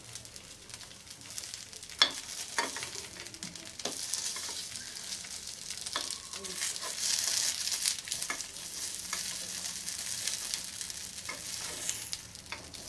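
Sabudana vada balls sizzling softly in a little ghee in a non-stick appe pan, while a metal spoon turns them over with scattered clicks and scrapes against the pan; the sharpest click comes about two seconds in.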